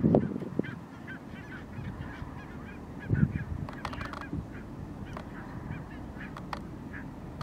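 A large flock of barnacle geese calling, many short honks overlapping without pause. Louder low rumbles come at the start and about three seconds in.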